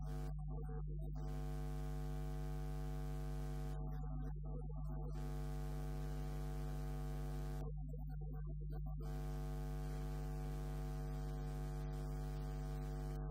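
Steady electrical mains hum with a ladder of buzzing overtones over a faint hiss, with no voice audible; the upper hiss drops out briefly three times.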